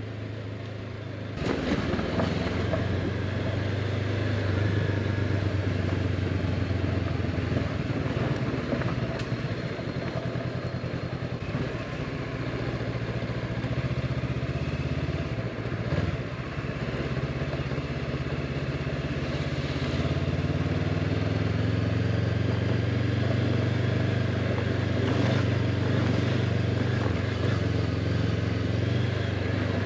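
Honda CB500X parallel-twin engine running as the motorcycle rides off. It gets louder about a second and a half in, and the engine note dips briefly around the middle before rising again.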